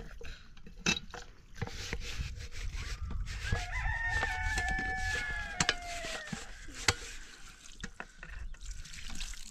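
A rooster crows once in the middle, one long call of about three seconds that drops a little in pitch at the end. Around it come short clinks and splashing from a kettle being washed with water poured from a jug.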